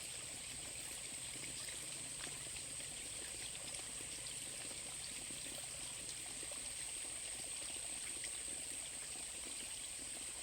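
Water running steadily in a stream, with a constant high-pitched whine over it.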